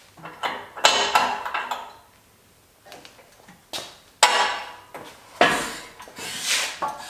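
Steel swing-out arm of an ARB rear tire carrier being handled and swung, giving a series of metal clanks and rattles, each ringing briefly.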